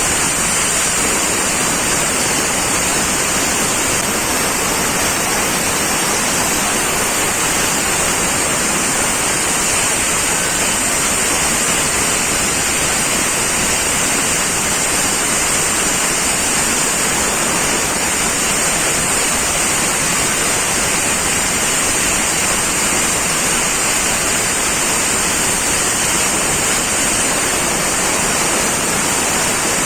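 SD-01 band resaw running and cutting stock fed by its conveyor belt: a steady, loud hiss with a high, thin edge, unchanging throughout.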